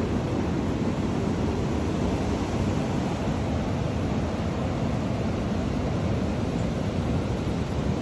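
Strong wind blowing through bare trees and buffeting the microphone: a steady rushing noise, heaviest in the low end.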